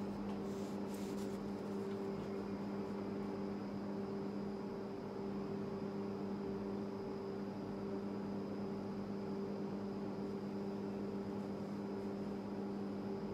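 Steady low electrical hum with a faint high-pitched whine above it, unchanging throughout. A couple of faint brief rustles about a second in.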